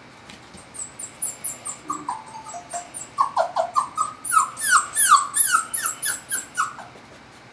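Four-week-old puppy whining: a quick run of short, high, falling cries that grow louder through the middle and stop near the end, with light clicks mixed in.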